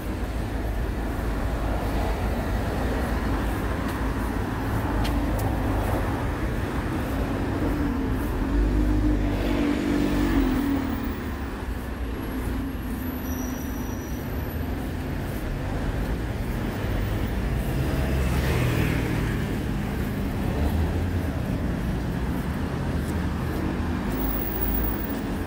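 Road traffic on a busy city street: vehicle engines running and passing in a steady rumble, with louder passing vehicles about ten seconds in and again a little past the middle.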